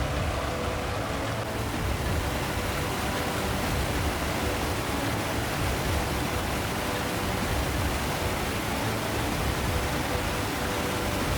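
A steady rush of water, an even noise that does not change.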